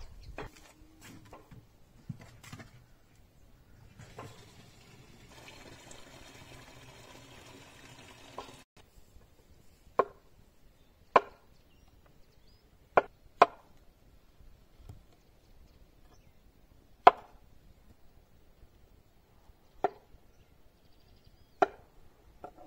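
Kitchen knife striking a wooden cutting board in single, sharp chops, seven in all, spaced one to three seconds apart. A faint steady hiss comes before the first chop.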